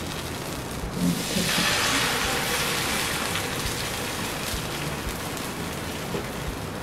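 Noodle-and-egg batter hitting hot oil on a nonstick tawa: a loud sizzle starts suddenly about a second in, after a couple of soft knocks from the steel ladle, then slowly dies down as the batter is spread into a patty.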